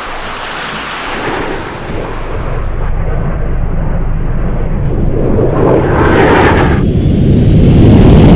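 Jet aircraft roar swelling steadily louder, with a rushing sweep about six seconds in.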